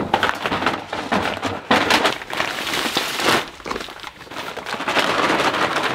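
Chick starter feed pouring out of paper feed sacks into metal drums, a rushing hiss, with the crinkling and rustling of the paper sacks.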